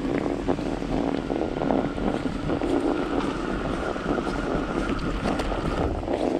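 Strong wind buffeting the microphone during a mountain-bike ride through a snowstorm, with scattered clicks and knocks from the bike and trail. A faint steady whine runs through most of the middle.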